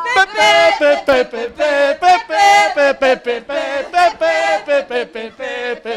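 A voice singing a fast, chant-like tune with no instruments, short notes following one another quickly.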